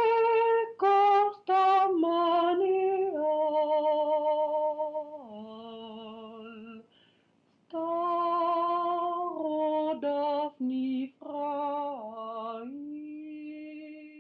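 Czech lullaby from a field recording: a woman singing alone, unaccompanied, in two phrases of long held notes with a short break about seven seconds in. The last note is held and fades near the end.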